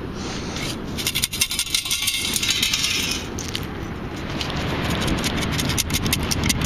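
Sand and shell fragments rattling in a perforated beach sand scoop as it is shaken to sift out a buried find. It comes in two spells of dense clicking, the first about a second in and the second near the end.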